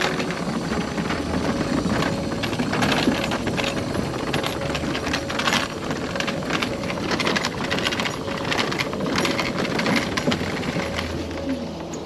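Pride Mobility Pursuit 2 mobility scooter driving, its electric motor running steadily while the wheels rattle and clatter over the trail with many irregular knocks.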